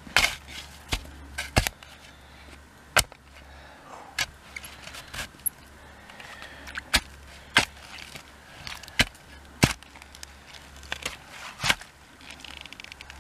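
Spade repeatedly chopping and scraping into wet, twiggy soil while digging a trench through snow: sharp, irregular strikes about once a second.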